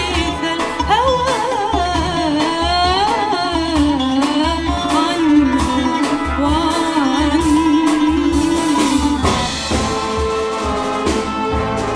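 Live big-band arrangement of traditional Syrian music: an ornamented, gliding vocal melody over oud and a rhythm section with a regular bass pulse. About ten seconds in, the line gives way to steady held chords from the band.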